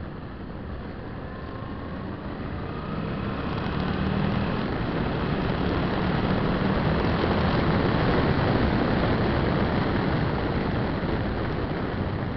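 Suzuki V-Strom 650's V-twin engine running under way, mixed with heavy wind rush on the windscreen-mounted camera. The sound grows louder about four seconds in as the bike picks up.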